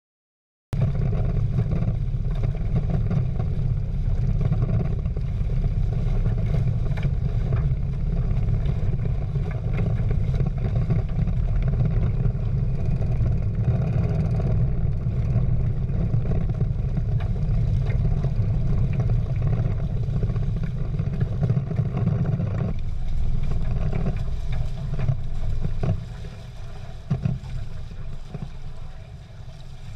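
Wind buffeting the camera microphone, with water rushing along the hulls of a Prindle 16 catamaran under sail. The noise starts abruptly just under a second in and drops noticeably in level near the end.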